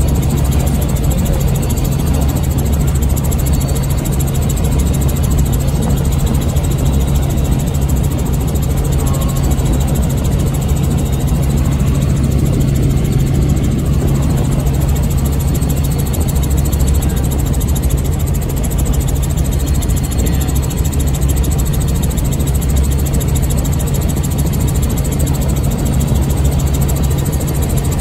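Tour helicopter's engine and rotor drone heard from inside the cabin: a loud, steady low hum that does not change.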